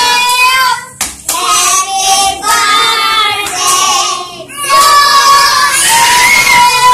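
A group of young children singing together, clapping their hands along with the song.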